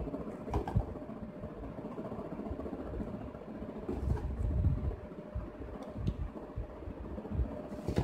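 Handling noise as a plastic mini tripod is turned over in the hands above a cardboard box, with a few light clicks, over a steady low rumble and hum.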